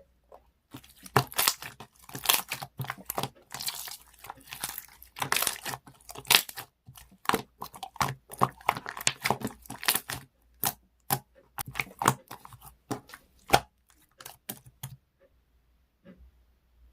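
Marbled slime being stretched and squished by hand, giving rapid sticky crackles and pops that stop about fifteen seconds in.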